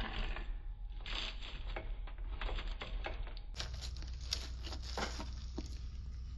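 Pizza wheel crunching through the crisp baked crust of a margherita pizza: a quick run of crackles and clicks. About three and a half seconds in, more crackling follows as a slice is pulled away.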